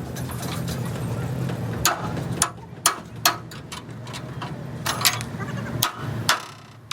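Hammer blows on metal: about seven sharp, irregular strikes, over a steady low hum of a running machine or engine.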